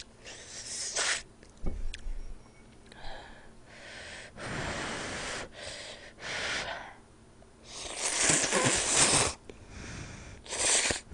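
Jjamppong noodles slurped up off chopsticks in about five long, breathy slurps of a second or so each, the longest near the middle, followed by a sip from the soup bowl.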